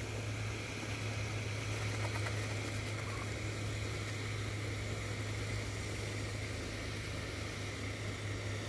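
A steady low hum under an even hiss, with a few faint ticks.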